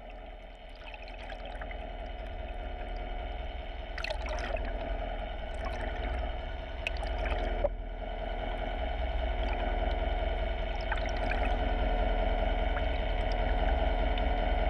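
Underwater sound heard through a submerged camera: a steady low drone and muffled water movement, with scattered sharp clicks, slowly growing louder.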